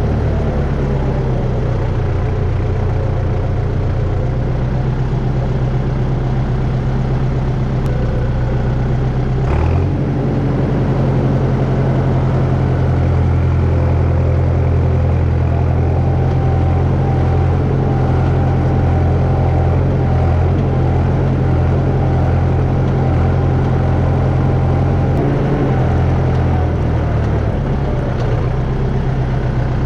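A heavy vehicle engine running steadily at low revs, with a short knock about a third of the way through where the engine note changes.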